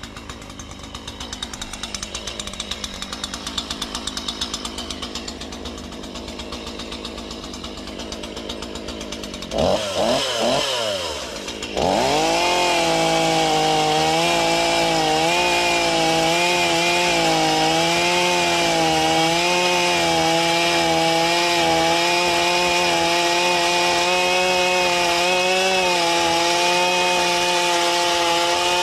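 Chainsaw idling with an even, rhythmic putter. About ten seconds in it is revved up and down, then it is held at high revs, running steadily with a slight waver for the rest.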